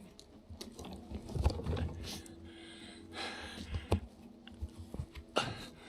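Handling noise from a camera being repositioned: irregular knocks, clicks and rustles close to the microphone, with the sharpest knock about a second and a half in.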